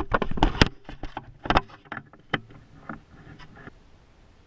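Knocks and clatters of gear being handled aboard a small fishing skiff: a quick run of them over the first second and a half, then a few scattered ones, fading to faint background.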